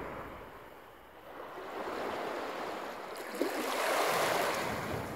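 Small Lake Superior waves washing up onto a sandy shore, with a hissing wash that rises and falls twice, the second surge louder and peaking about four seconds in.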